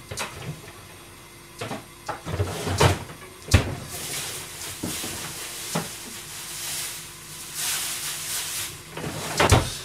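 Kitchen cupboard or door knocks and clatter as someone moves about a kitchen: half a dozen sharp knocks spread through, the loudest about three and a half seconds in and near the end, with a spell of rustling in between.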